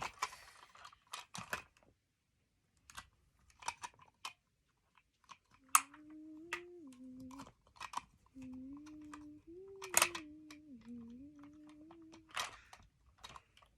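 Scattered clicks and taps of a plastic toy and its parts being handled. Through the middle, a soft tune of a few held notes steps up and down, pausing briefly halfway.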